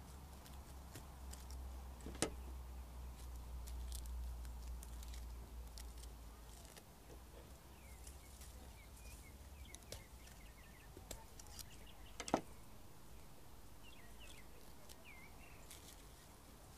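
Two sharp snips, about ten seconds apart, of a cutter going through the wire stems of straw flowers, among light handling clicks. Birds chirp faintly through the second half over a low rumble that fades out partway through.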